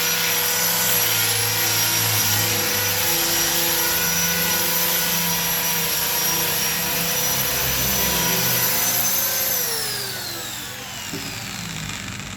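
Hand grinder used as a sander, its motor running steadily with a high whine, then switched off about nine and a half seconds in, the whine falling as it spins down.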